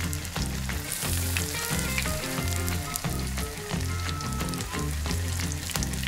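Beer-battered walleye wings deep-frying in hot oil, a steady sizzle with many small crackling pops. Background music with a bass line runs underneath.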